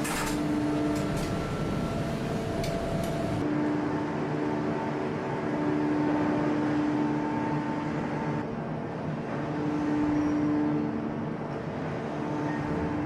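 Hydraulic forging press running under load: a steady hum from its hydraulics, with several pitches that swell and fade, and a few sharp clicks in the first three seconds.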